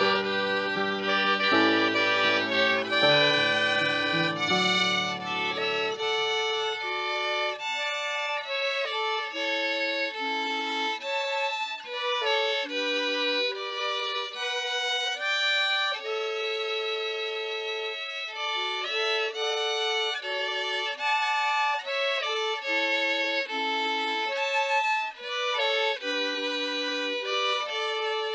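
Violin playing a melody of separate notes. A lower accompaniment underneath drops out about seven seconds in, leaving the violin alone.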